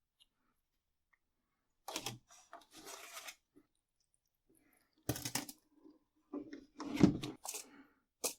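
Hands working with seedling pots and potting soil: a run of short rustles and scrapes starting about two seconds in, with the loudest knock about seven seconds in and a sharp click at the end.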